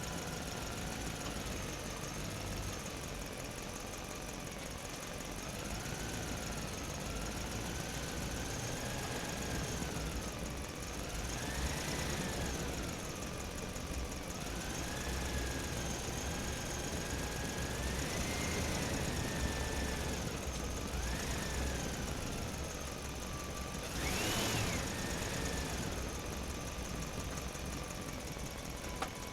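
A toy vehicle's small motor whining, its pitch rising and falling over and over as it speeds up and slows down, with a sharper rise and fall near the end over a low rumble.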